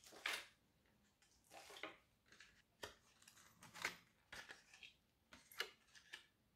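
Dry gelatine sheets crinkling and snapping as they are pulled apart by hand: a series of short, faint crackles and clicks.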